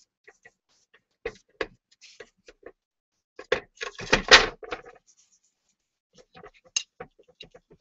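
Handling noise of a ceramic bowl being tilted and set back down on a wooden tray while it is polished with cotton: scattered light knocks, with a louder scraping knock about four seconds in.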